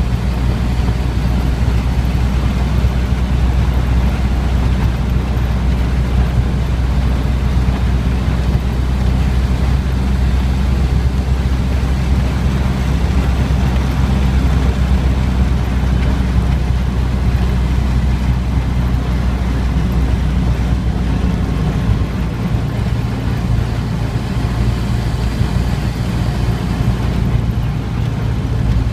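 1931 Ford truck's four-cylinder engine running steadily while driving down the road, a continuous low rumble mixed with road noise.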